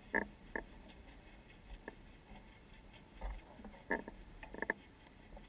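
Kayak paddling on flat water: short splashes and drips as the paddle blades dip and lift, in a pair just after the start, a couple more near two seconds, and a cluster around four to four and a half seconds.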